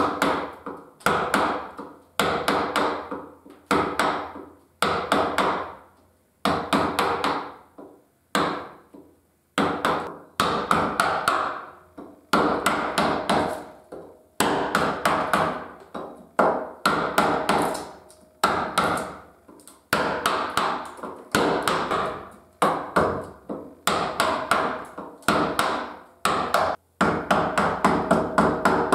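Round wooden carver's mallet striking the handle of a carving gouge driven into cherry wood: sharp knocks in quick runs of several blows with short pauses between the runs, each blow cutting out a chip.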